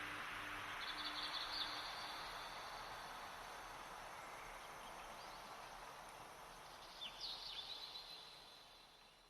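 Ambient outro of a slowed, reverbed track: a soft wind-like hiss fading slowly away, with two short bursts of high bird-like chirps, about a second in and about seven seconds in.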